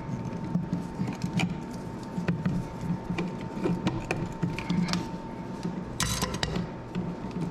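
Light clicks, taps and scrapes of an electrical outlet and its wires being handled and pushed into a wall box, with a brief scrape about six seconds in, over a steady low hum.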